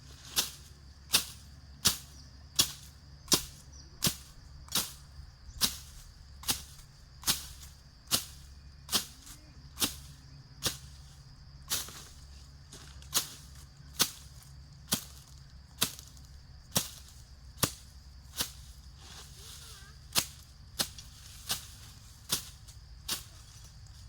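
A series of sharp knocks at a steady pace, about one every second, pausing briefly twice, over a faint steady high-pitched hum.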